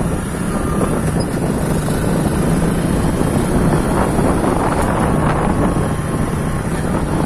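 A vehicle's engine running steadily, mixed with heavy wind noise on the microphone while moving, at a constant level throughout.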